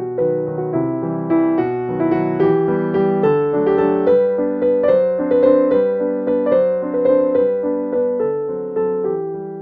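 Background piano music, a run of struck notes that each ring and fade.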